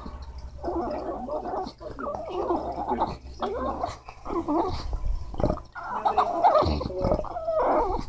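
English bulldog 'talking': a string of throaty grumbling vocal sounds that rise and fall in pitch, in short bouts about a second long with brief breaks. She is begging for a treat.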